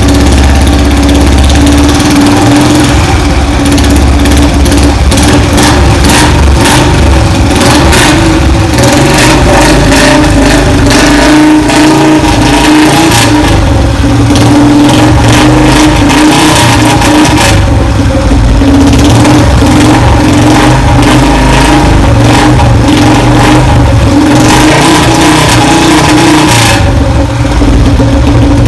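Royal Enfield Bullet Electra's single-cylinder engine running loud, idling and being revved, its speed rising and easing now and then.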